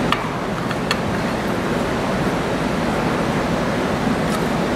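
Steady background hiss of room noise, with a few small clicks as a metal equipment guard is handled and screwed back on with a screwdriver: two or three in the first second and one more near the end.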